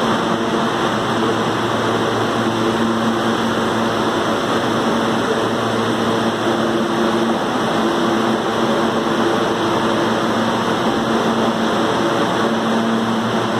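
New York City subway train standing at the platform, its motors and air-conditioning running in a loud, steady hum with a few held tones.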